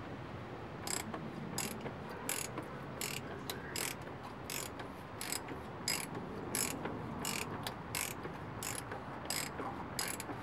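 Socket ratchet clicking in short runs, one run about every 0.7 seconds on each back-swing, as it tightens the oil filter housing cap after a new cartridge filter and O-rings have gone in.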